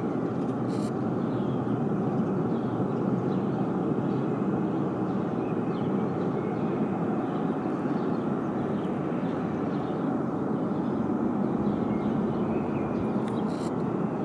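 Ariane 5 rocket engine firing on a test stand, heard from a distance as a steady, unbroken roar.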